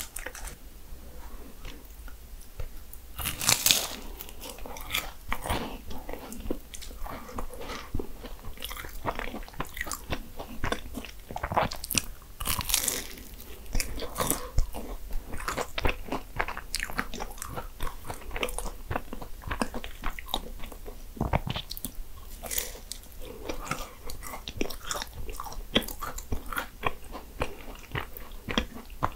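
Bites into Portuguese egg tarts (nata), the flaky puff-pastry shell crunching and crackling, followed by chewing; the crunches come in clusters, with louder crisp bites about three and a half seconds in and again around twelve seconds.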